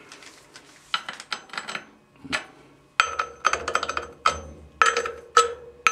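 Steel bolt clinking and knocking against a drilled steel plate on a milling-machine table. A few light clicks, then from about three seconds in a quick run of sharp metallic clanks that each ring briefly.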